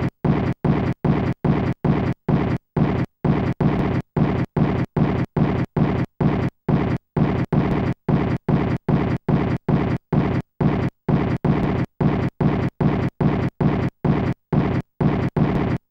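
Electronic art soundtrack of harsh noise chopped into short bursts, about three a second, each cut off sharply by a brief silence.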